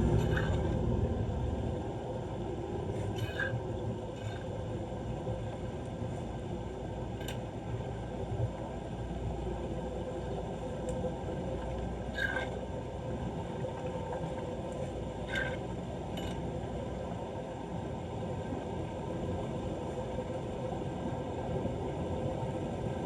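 Flood water running steadily into a street drain, with a few short high-pitched chirps scattered over it.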